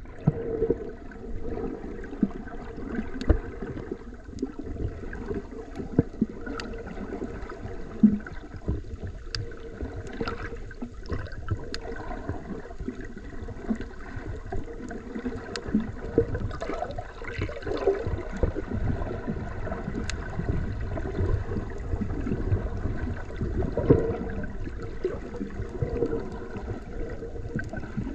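Underwater water noise picked up by a submerged camera: a muffled, uneven low rumble and sloshing, with scattered sharp clicks and pops.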